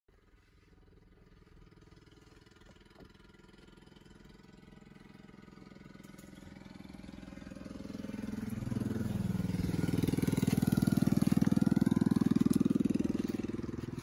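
A motor vehicle engine running with a fast pulsing note, getting steadily louder over about ten seconds, loudest near the end, with its pitch bending as it peaks, like a vehicle passing close by.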